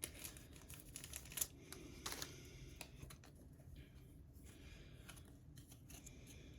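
Faint scattered clicks and light handling noises of small items and packaging being handled by hand, strongest in the first few seconds.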